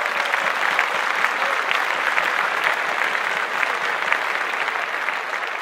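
Audience applause: a dense, steady patter of many hands clapping, easing slightly near the end.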